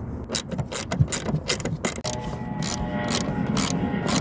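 Hinge screws on a van's sliding door being backed out with a ratcheting tool: irregular clicks, then from about two seconds in a continuous fast ratcheting whir with a faint whine.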